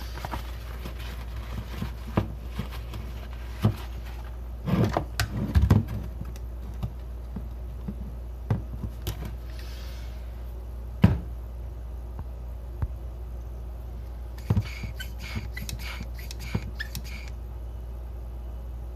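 Scattered clicks and knocks from handling a hand vacuum pump hooked to a VW D-Jetronic MAP sensor. A quick run of clicks comes about three-quarters of the way through, as the pump is squeezed to pull vacuum on the sensor. A low steady hum runs underneath.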